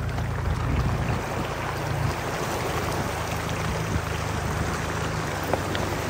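A 4x4 driving through floodwater on a dirt track: water steadily splashing and rushing off the front tyre, with the engine running underneath.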